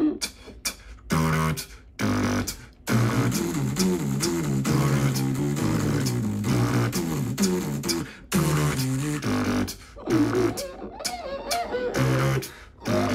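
Beatboxing: one voice imitating a heavy metal guitar riff, low pitched notes stepping up and down, with mouth-made kick, snare and hi-hat sounds. Short stop-start phrases open it, then the riff runs on without a break for several seconds before a brief pause and more riffing.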